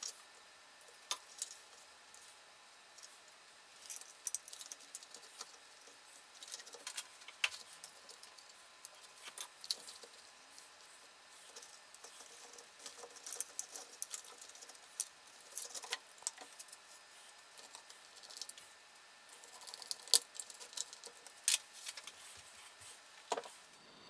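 Irregular light clicks, taps and rattles of hands handling a circuit board, wires and a plastic panel while fitting the electronics back into a speaker cabinet.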